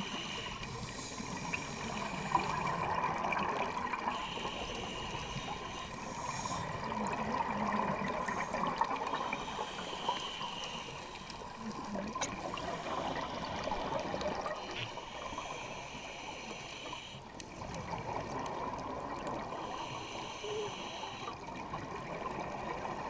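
Scuba diver breathing underwater through a regulator: hissing inhalations alternate with longer stretches of exhaled bubbles, in a slow cycle of a few seconds each.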